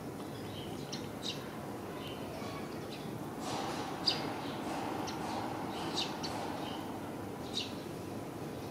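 Small birds chirping: short, high single chirps, scattered about once a second, over a steady background noise.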